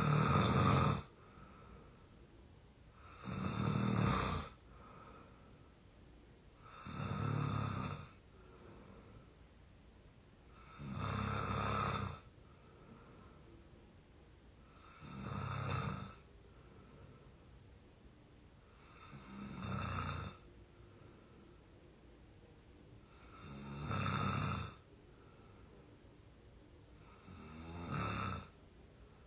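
A 22-year-old snoring in exhausted sleep. The snores come in a steady rhythm of about one every four seconds, each lasting about a second.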